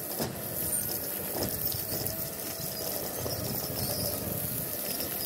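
A 12,500-pound electric winch running steadily under load, pulling the hide off a whitetail deer carcass.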